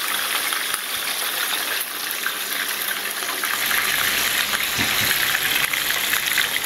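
Whole snapper and drum fish frying in hot oil in a frying pan, a steady sizzle with many small pops.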